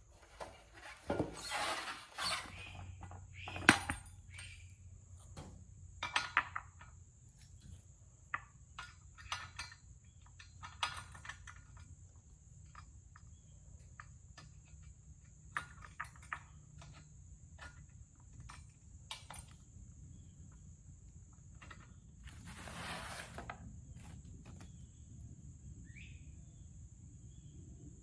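Intermittent knocks, clinks and short rattles of parts and tools being handled while a portable concrete mixer is assembled, with a sharp knock about four seconds in and a longer clatter a little before the end.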